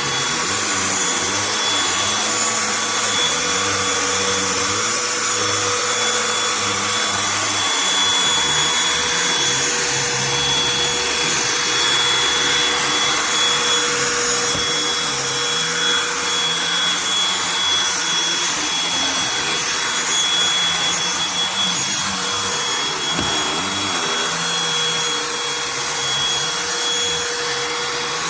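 Cordless handheld vacuum running steadily with a high motor whine while vacuuming carpeted stairs.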